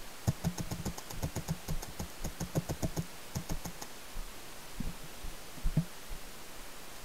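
Paintball marker firing a rapid string of shots, about eight a second, for roughly three and a half seconds. A few more single shots follow, including a quick pair.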